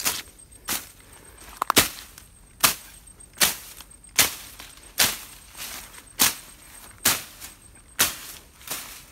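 A hand-held blade slashing through grass and weeds, about a dozen sharp swishing strokes at a steady pace of a little more than one a second.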